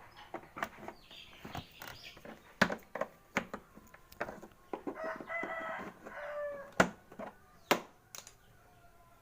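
A rooster crows once, about five seconds in, a pitched call of a second and a half that falls at the end. Around it come sharp clicks and knocks of hands and tools working on bolts in the scooter's bodywork, the loudest of them louder than the crow.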